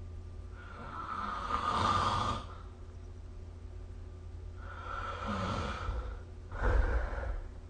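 A sleeping person snoring: a long, noisy breath about a second in, a weaker one around five seconds in, then a short, louder and deeper one near the end.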